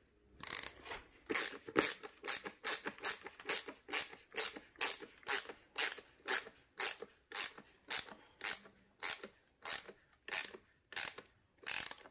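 A screw being driven by hand with a screwdriver into the carpet washer's housing, making a short scraping creak with each twist, about two to three a second.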